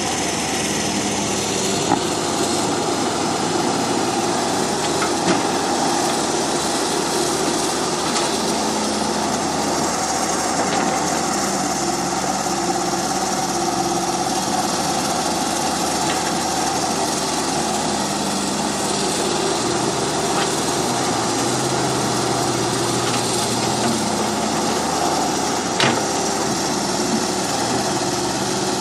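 Small electric motors and gearboxes of remote-controlled toy construction vehicles whirring as they dig and carry sand, their whine shifting in pitch as the machines work, with a few sharp clicks.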